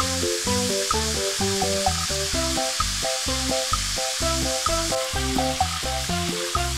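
Flour-coated chicken cordon bleu rolls sizzling steadily as they deep-fry in hot oil, over background music of quick, short notes with a bass line.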